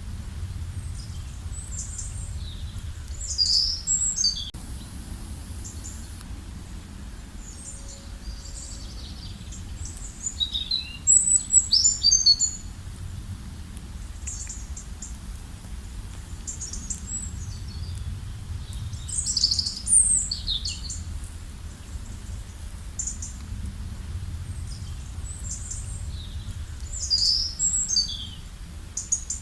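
A songbird singing short bursts of high chirps and falling notes, repeated about four times, roughly every eight seconds, over a steady low background rumble.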